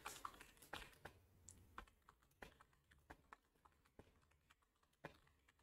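Faint, irregular keystrokes on a computer keyboard, about two clicks a second, as a line of text is typed.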